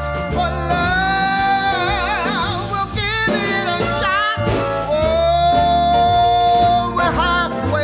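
Background music: a song with a singer holding long notes with vibrato over a bass line.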